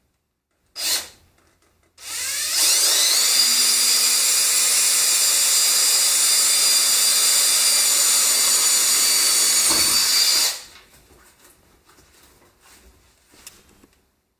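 Power drill with a 1/8-inch bit drilling a standoff hole through a paper template into a metal panel. A short blip of the trigger about a second in, then the motor whines up to speed, runs steadily for about eight seconds and winds down.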